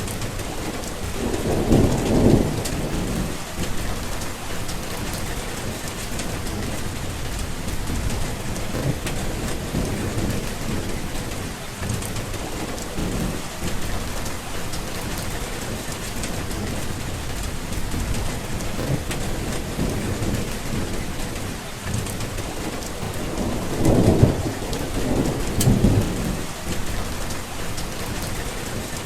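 Steady rain with rolling thunder, the rumbles swelling about two seconds in and twice more near the end.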